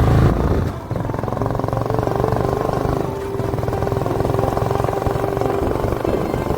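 Motorcycle engine running steadily, with a brief dip in level just under a second in.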